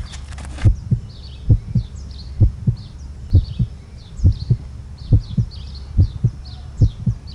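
Heartbeat sound effect: paired low thuds, lub-dub, repeating slowly a little under once a second. Birds chirp faintly behind it.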